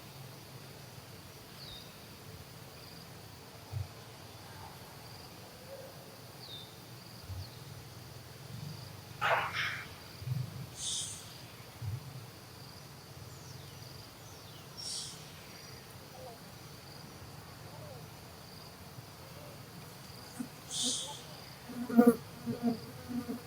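A steady high-pitched insect drone of crickets or cicadas, with short high chirps breaking in every few seconds and a brief, louder voice-like call near the end.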